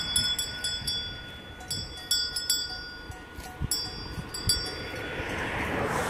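Cowbells on grazing cows clanking in irregular clusters as the animals move their heads. High ringing tones linger between strikes.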